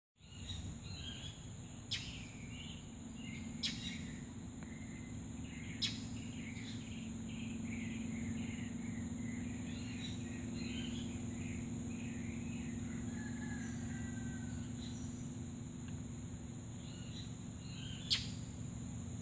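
Crickets trilling steadily and high, with birds chirping in short scattered notes over a low steady hum. A few sharp clicks stand out, three in the first six seconds and one near the end.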